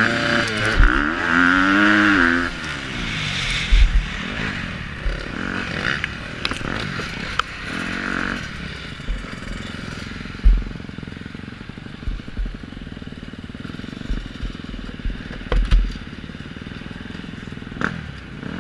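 KTM 250 SX-F motocross bike's single-cylinder four-stroke engine revving hard, rising and falling, for the first couple of seconds. From about eight seconds in it eases to a low, steady run as the bike rolls slowly, with frequent short low thuds.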